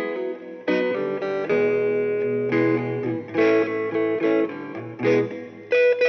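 Background music: plucked guitar notes and strums.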